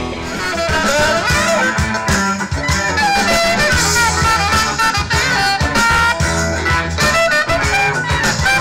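Live blues band playing an upbeat number, electric guitar lines over drums.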